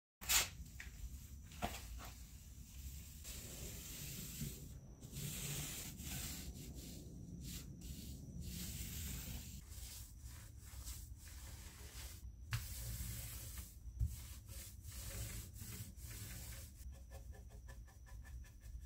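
Paint roller rolling a protective coat over a rust-finished panel in repeated strokes, a wet rubbing hiss with short gaps between passes. It begins with a sharp click, and near the end the strokes become finer and more even as a brush works the coat.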